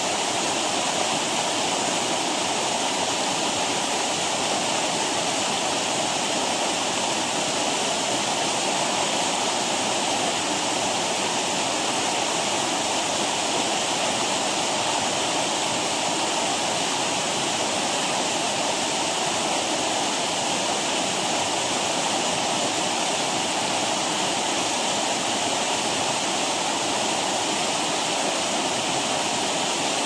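Rocky river rapids: water rushing over and between boulders in a steady, unbroken rush.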